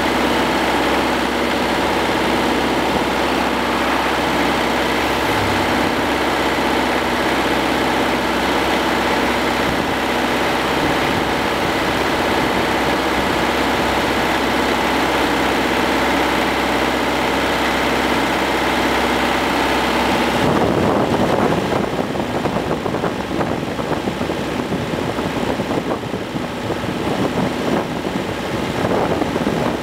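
Hürlimann D70 tractor's diesel engine running steadily while driving along the road. About two-thirds of the way through, the sound turns rough and uneven.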